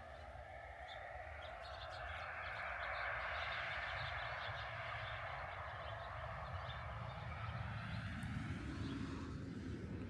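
Outdoor ambience: a rushing noise swells over several seconds, then drops lower in pitch near the end, with small birds chirping faintly.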